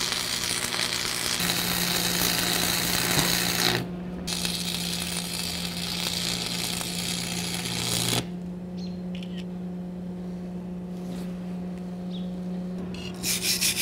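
Stick-welding arc running on steel from a Lincoln 225 welder, in two runs of about four seconds each with a short break just under four seconds in, stopping about eight seconds in. A steady low hum goes on underneath.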